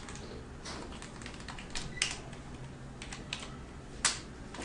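Computer keyboard typing: irregular key clicks, with two louder keystrokes about two seconds in and near the end.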